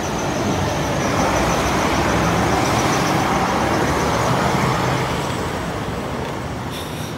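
Road traffic on a wet street, buses and cars going by: a steady rushing noise with a low engine hum, fading toward the end.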